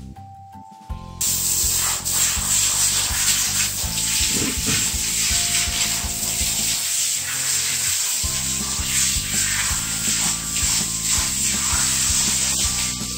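Handheld shower head spraying water over a wet dog's coat, rinsing out the shampoo lather; a steady hiss that starts about a second in and stops near the end.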